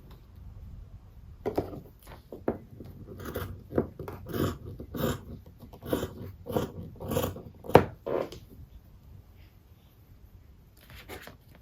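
Scissors snipping through sock fabric: a run of about a dozen cuts, roughly two a second, that stops after about eight seconds.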